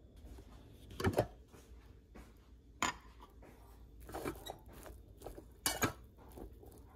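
Metal spoon clinking and scraping against a rice cooker's metal inner pot while stirring cooked freekeh, with several irregular sharp knocks, the loudest about a second in and near the end.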